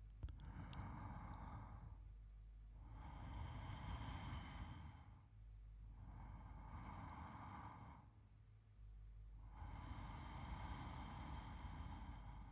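A man's slow, quiet sleep breathing: about four long, soft breaths with pauses between them, and a few faint clicks at the start.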